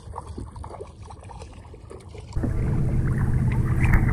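Low background noise, then a sudden jump about two seconds in to louder water sound: water washing against a boat hull right at a waterline camera, with splashes from a hooked redfish thrashing at the surface near the end.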